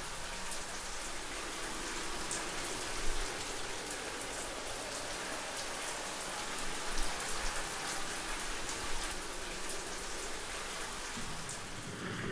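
Shower spray running steadily, water hitting the floor of a glass-doored shower stall; it comes on abruptly.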